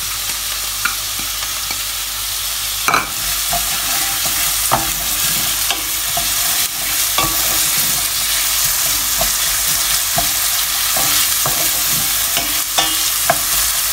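Chopped onion sizzling in hot oil in a stainless steel sauté pan, stirred with a wooden spoon that scrapes and knocks against the pan. The loudest knock comes about three seconds in.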